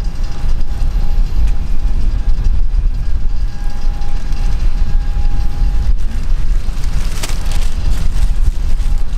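Airbus A320-214's CFM56 jet engines on final approach: a loud, low, steady rumble with a faint steady whine above it.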